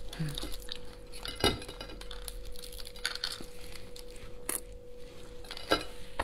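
Hands peeling the spiny shell of a raw lobster: scattered cracks and clicks of shell as it is pried and snapped apart. The loudest crack comes about a second and a half in, and another comes near the end.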